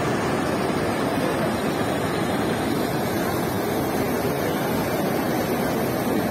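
Zayandeh River water rushing and churning steadily around the stone pier footing of the Si-o-se-pol bridge.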